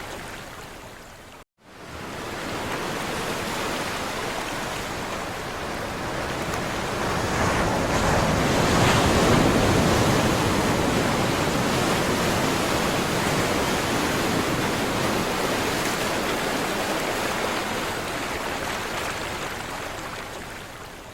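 Sea surf washing on a shore: a steady rush of waves that swells to its loudest about nine seconds in, then slowly ebbs. The sound cuts out for a moment about a second and a half in.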